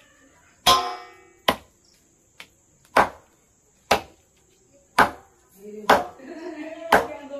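Knife chopping raw chicken on a wooden cutting board: about seven sharp chops, roughly one a second.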